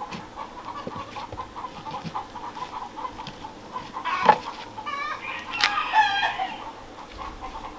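Chickens clucking, with a rooster crowing from about five to six seconds in. About four seconds in, a single sharp knock of a knife cutting through a corn cob onto a wooden cutting board.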